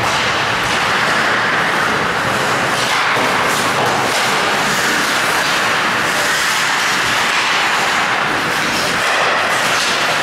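Ice hockey game in play in a rink: a steady wash of noise with faint scattered knocks.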